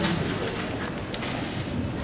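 Steady background noise of a large hall, with a couple of short clicks or rustles.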